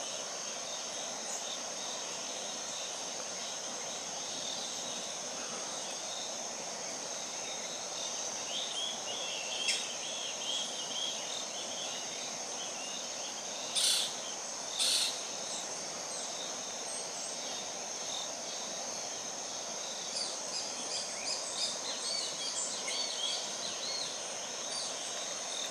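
Steady high-pitched insect drone over a constant hiss, with scattered soft bird chirps and two short, louder calls a second apart about halfway through.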